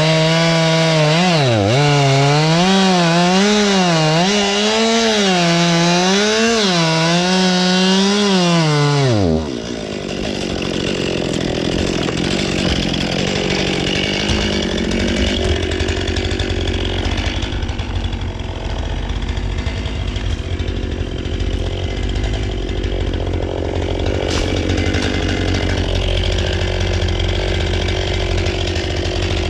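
Two-stroke chainsaw running, its pitch rising and dipping again and again as it cuts, then winding down sharply about nine seconds in. A lower, steady engine hum with noise carries on after it.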